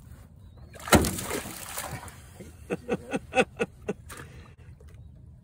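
Hooked largemouth bass thrashing at the surface beside the boat: one loud splash about a second in, then a quick run of about eight sharp slaps on the water.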